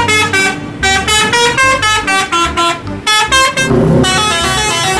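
Bus multi-tone musical horn (Indonesian 'telolet' horn) playing a quick tune of short stepped notes, several a second. The tune breaks off just before four seconds in, and a new run of notes follows.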